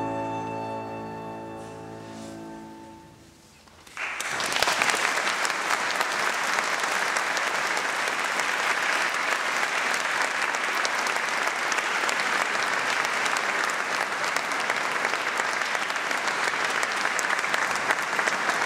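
Double bass and piano hold the final chord, which fades away over about three seconds. About four seconds in, an audience breaks into steady applause.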